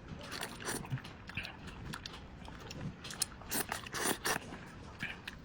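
A person eating instant noodles: irregular wet chewing and slurping, loudest about three and a half to four and a half seconds in.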